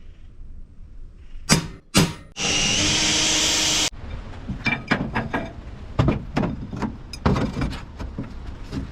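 Workshop fabrication noise: two sharp knocks, a power tool running for about a second and a half, then a run of irregular knocks and taps.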